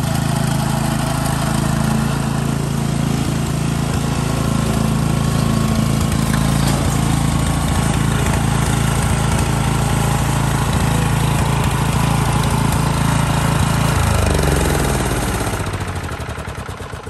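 Ryan LA28 core aerator's Robin gasoline engine running steadily, then shut off about fourteen seconds in, its pitch falling as it spins down to a stop.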